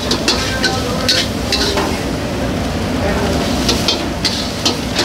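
Metal spatula scraping and tossing fried rice with prawns around a wok in quick, irregular strokes, over a steady sizzle of frying, with a short lull in the strokes in the middle.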